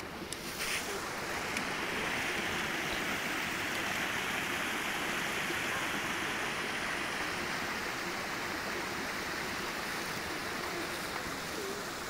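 Mountain creek running, a steady rush of water that swells louder about a second in and eases off again near the end.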